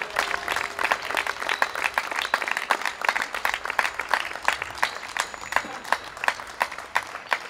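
A small crowd applauding with many overlapping hand claps, thinning out near the end.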